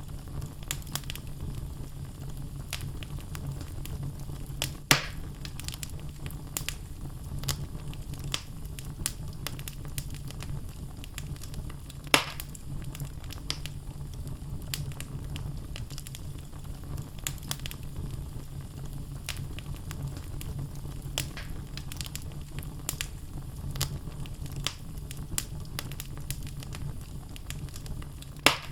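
Wood fire burning in a fireplace: logs crackling with many small sharp pops over a low steady rumble. Three louder pops stand out, about 5 seconds in, about 12 seconds in, and near the end.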